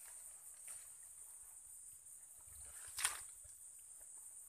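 Faint sloshing of water and mud as a hand works inside a small water-filled hole in the ground, with one sharp splash about three seconds in.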